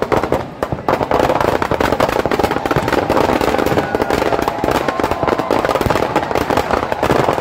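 Firecrackers packed inside a burning Ravan effigy going off in a dense, rapid crackle of pops.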